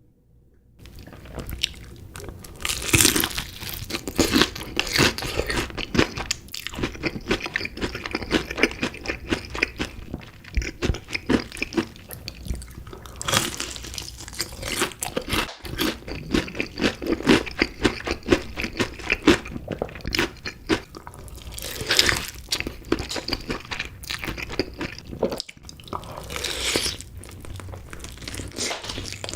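Close-miked eating: biting into, crunching and chewing chicken pieces, many irregular crunches starting about a second in.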